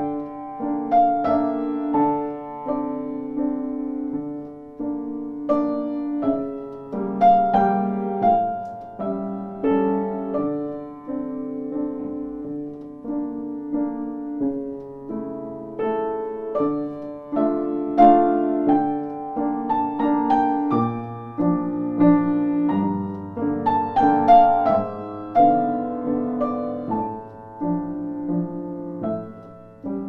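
Piano music: notes struck one after another, each fading, over held lower chords.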